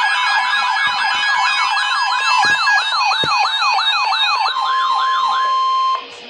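Electronic siren-style alert tones: several layered wails sweep rapidly up and down, slowing as they go, over steady beeping tones. About four and a half seconds in, a single steady alert tone takes over, and it cuts off sharply near the end.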